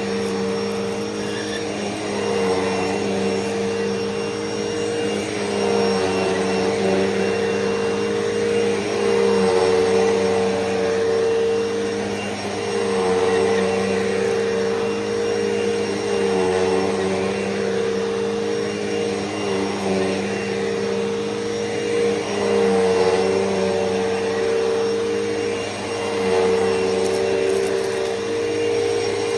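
A Hoover Elite Rewind upright vacuum cleaner running steadily while vacuuming carpet. Its motor hum swells and eases every few seconds.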